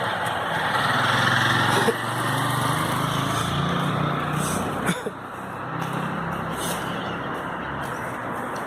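A motor vehicle's engine running close by on a street, building up in the middle and easing off, over general street noise, with two sharp knocks about two and five seconds in.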